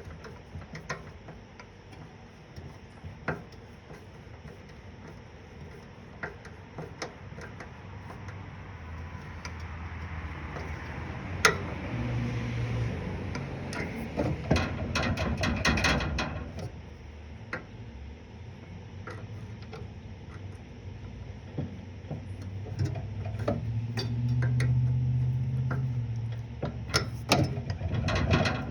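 Hand tools clicking and clinking on the mower engine's metal, with a quick run of ratchet-like ticks about fifteen seconds in. A low hum swells in the background around the middle and again near the end.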